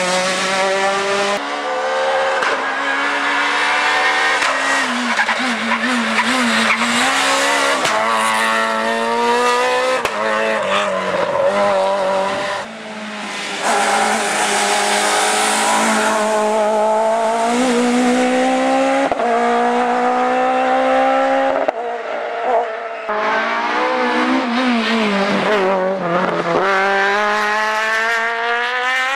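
Rally cars driven hard through tight bends one after another, engines revving up through the gears. The pitch climbs and drops at each gear change, with a brief lull about halfway through.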